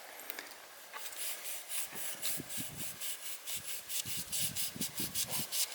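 A knife worked back and forth in quick rasping strokes, about four or five a second, starting about a second in, with duller thuds mixed in.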